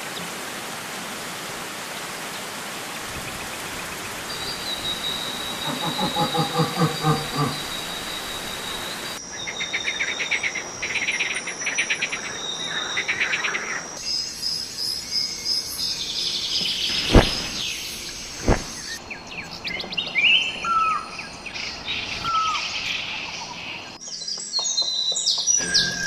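Rushing water from a waterfall and river rapids as a steady hiss with a few calls over it. It gives way to a series of short bird recordings, various birds chirping and calling, with two sharp clicks about two-thirds through.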